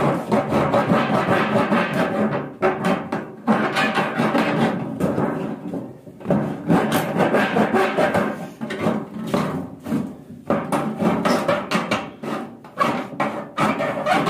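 A hand-held blade cutting open the top of a square tin-plate oil can, the metal scraping and rasping in quick strokes with short pauses.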